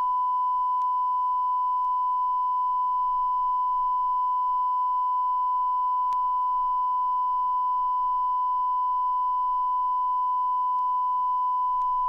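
Steady, unbroken sine test tone from Pro Tools' Signal Generator, with equal left and right level, used as a continuous reference to balance the two channels of a stereo analogue compressor.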